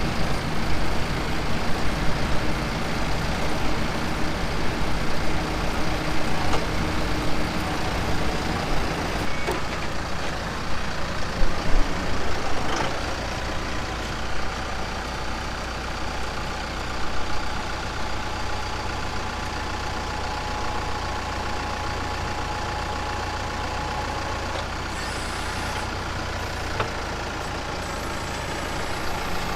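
Tractor diesel engine running, louder and more uneven for the first twelve seconds or so, then steadier.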